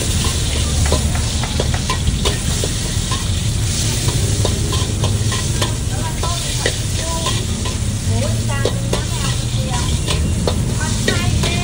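Meat frying in hot oil in a large wok, sizzling steadily, while a metal wok spatula scrapes and taps against the pan again and again, over a steady low rumble.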